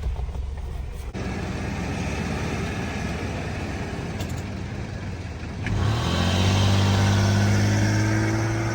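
A vehicle engine running with road or tyre noise; about six seconds in, the engine revs up with a rising pitch and then holds at a higher, louder, steady note.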